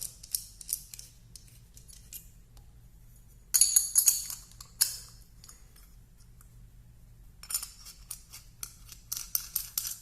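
Small metal hole saws and their holder clinking and clicking against each other and a plastic case as they are handled, with two busier bursts of clatter, one about four seconds in and another near the end.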